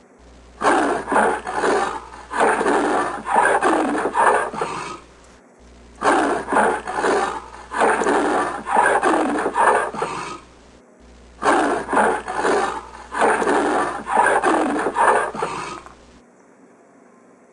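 Leopard roaring sound effect: a clip of rough, rasping big-cat grunts played three times over with short breaks between. It stops shortly before the end.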